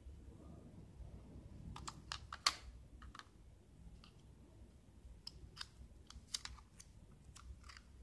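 Faint, irregular small plastic clicks and taps, more than a dozen over several seconds starting about two seconds in, from handling and pressing the buttons of small remote controls for flameless LED candles. The sharpest click comes about two and a half seconds in.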